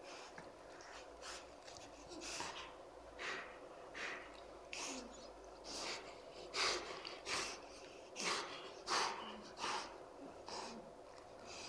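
Golden retrievers, a puppy and an adult, breathing hard through their noses in short noisy puffs, about one a second and louder in the second half, while the puppy mouths at the adult dog's face during play.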